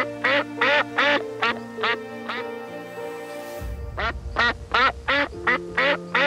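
Quacking calls repeated about three times a second over background music with held notes. The calls break off for about a second and a half in the middle, where a low rumble comes in, then resume.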